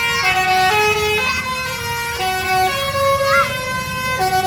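Bus telolet horn playing a melody of held notes, stepping up and down in pitch every half second or so, with some notes held for about a second.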